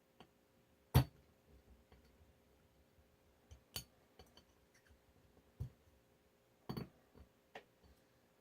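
Small metal clicks and clinks of Smith & Wesson 469 slide parts being handled and worked during disassembly. A sharp knock about a second in is the loudest, followed by several lighter clicks spread through the rest.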